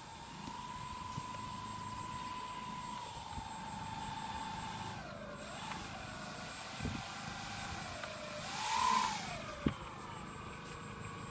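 Electric motors and propellers of a four-engine RC Super Constellation model whining in flight. The pitch holds steady, then dips and wavers with the throttle. The sound swells loudest about nine seconds in as the model passes close, then falls away. Two short knocks come in the second half.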